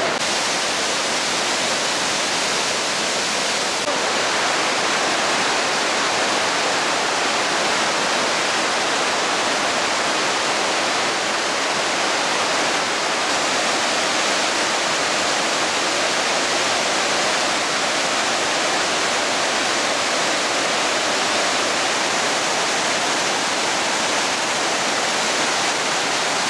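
The Rhine Falls' water rushing and crashing in a loud, steady, unbroken roar of white water.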